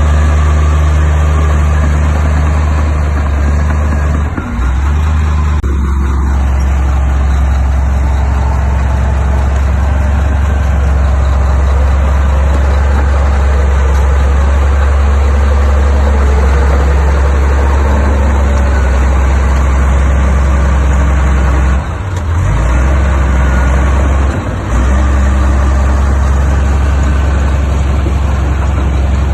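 Heavy earthmoving machine's diesel engine running steadily under load, its low hum dipping briefly a few times.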